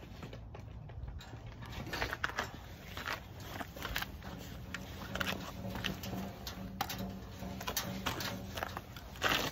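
Steel barbecue pit being assembled: irregular clicks, taps and rattles of hardware and tools on the metal frame, with a low steady hum joining in about halfway.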